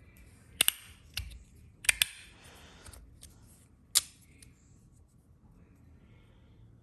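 Copper magnetic fidget slider being slid and snapped into place by its magnets: about six sharp clicks, some in close pairs, over the first four seconds.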